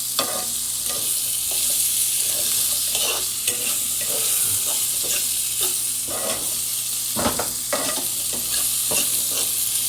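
Vegetables sizzling in hot oil in a pan, a steady high hiss with scattered pops, while a utensil stirs and spreads them with occasional light knocks and scrapes.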